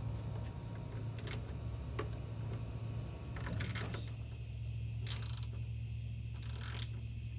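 Socket ratchet being worked on a bolt: a few sharp clicks, then three short bursts of ratcheting about 3.5, 5 and 6.5 seconds in, over a steady low hum.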